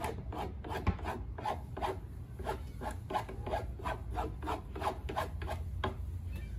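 Hand file or rasp scraping back and forth on the end of a wooden board, in even strokes about three a second.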